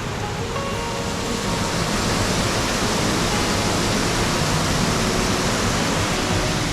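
Waterfall running steadily, an even hiss of falling water that grows a little louder about two seconds in.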